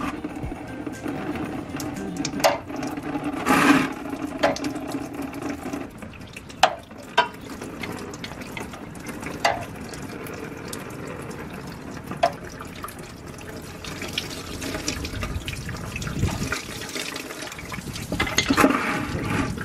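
A screwdriver clicking and scraping against a car radiator's drain plug as it is worked loose. From about two-thirds of the way in, engine coolant pours and splashes out of the drain, growing louder near the end.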